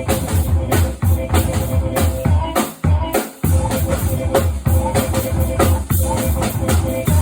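Experimental noise music with a fast, steady bass-drum beat under a held mid tone and noisy hits; the low drum drops out briefly about three seconds in.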